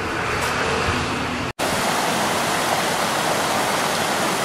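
Steady rush of river water pouring over a low weir and churning into white water below. It starts abruptly after a brief dropout about a second and a half in.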